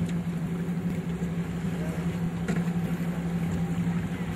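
Outboard motor of a small boat running steadily, a low even drone with sea and wind noise.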